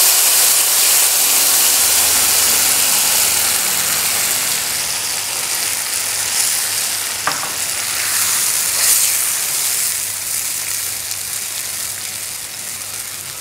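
Wet chilli-garlic chutney paste sizzling in smoking-hot mustard oil with cumin seeds, stirred with a silicone spatula. The sizzle is loudest at first and slowly dies down as the paste cools the oil, with a couple of light clicks about halfway through.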